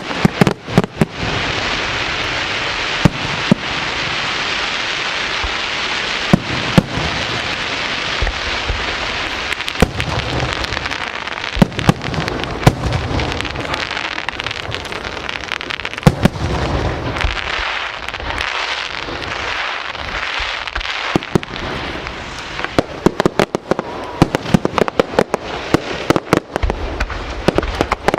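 Aerial fireworks display: a dense, continuous crackling with frequent sharp bangs of bursting shells, the bangs coming thick and fast near the end.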